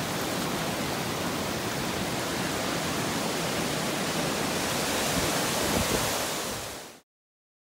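Mountain creek water rushing over rocks and a waterfall, a steady rush that cuts off suddenly near the end.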